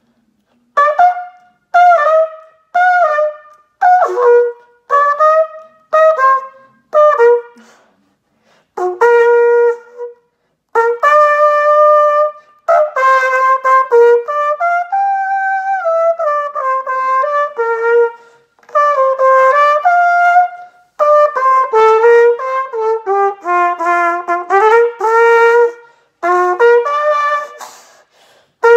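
Solo trumpet playing: about seven short separate notes roughly a second apart, then longer connected phrases moving up and down in pitch with a smooth slide up and back down, broken by short pauses for breath.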